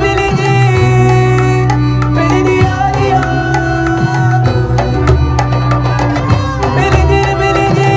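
Loud dance music with drums, hand percussion and a steady bass line.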